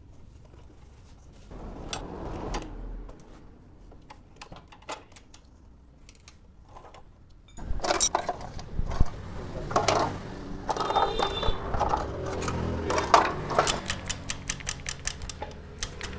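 Mechanical clicking and clattering, sparse at first and busier and louder from about halfway, ending in a fast, even ticking.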